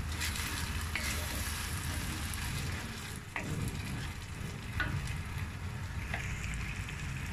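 Rice and grated tomato sizzling steadily as they are sautéed in a pot on a gas stove, with a few light clicks over the middle and later part.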